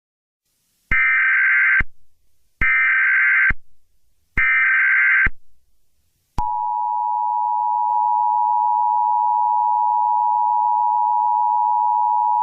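Mock Emergency Alert System test: three short bursts of SAME header data tones, then the steady two-tone EAS attention signal starting about six seconds in.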